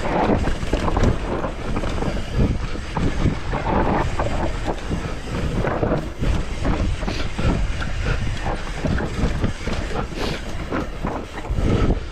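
Mountain bike riding down a rough trail: tyres rolling over dirt and roots, with the bike rattling and clattering in a dense run of irregular knocks.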